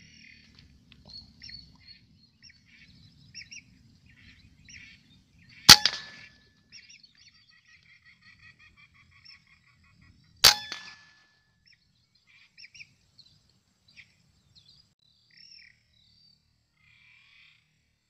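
Two sharp rifle shots about five seconds apart, each with a short ringing tail. Between and around them come many short, high bird calls.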